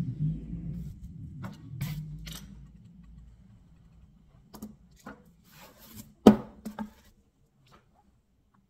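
A metal putty knife and a painted board being handled on a cardboard-covered table while sawdust is poured: a low rumble that fades out, then a few light taps, one sharper knock about six seconds in and two smaller knocks right after.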